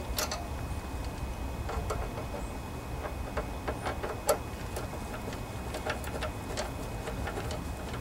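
Scattered light metallic clicks and taps at irregular times as a hand tool works the throttle linkage of a Kohler Command twin-cylinder engine that is not running, over a low steady rumble.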